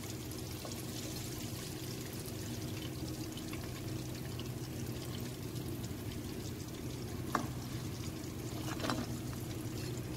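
Leftover ghee sizzling softly in a nonstick wok as fried chicken fillets are lifted out with metal tongs, over a low steady hum. Two light clicks of the tongs come a little past halfway and near the end.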